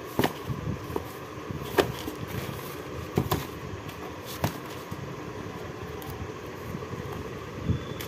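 Mangoes being moved by hand in a newspaper-lined cardboard box: a handful of short knocks and bumps, spread over several seconds, above a steady background hum.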